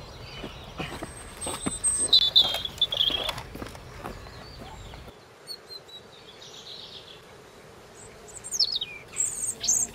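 Birds chirping: a few high, clear calls about two seconds in, and quick downward-sweeping whistled calls near the end, over a faint outdoor background.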